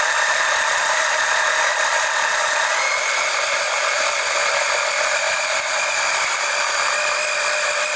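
Motor-driven oil extraction pump running steadily with a high whine while drawing old engine oil out of the motor. The pitch steps up slightly twice.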